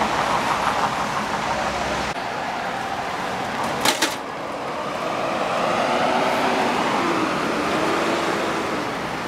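Road traffic and vehicle engines running, with one sharp knock about four seconds in.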